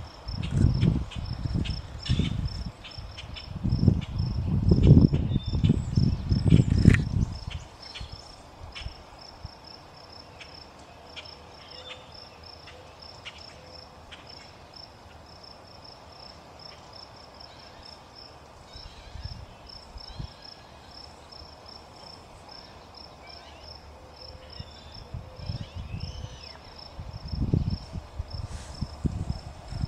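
A cricket chirping in a steady, even series of high chirps. There are bouts of low rumbling in the first several seconds and again near the end.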